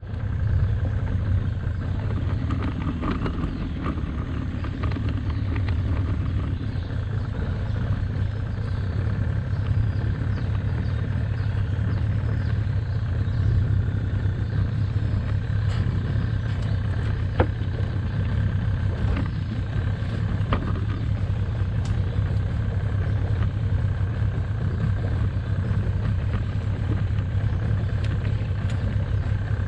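Small boat's outboard motor running steadily at low speed, a constant low hum, with a few light knocks in the middle.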